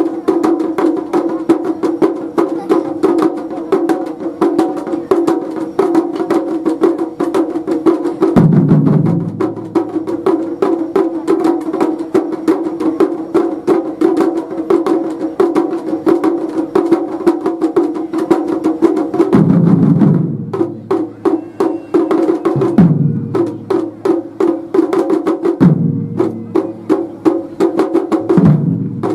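Japanese taiko (wadaiko) drum ensemble playing: fast, steady stick strokes on smaller drums, with a handful of heavy, deep strikes on a big drum from about a third of the way in.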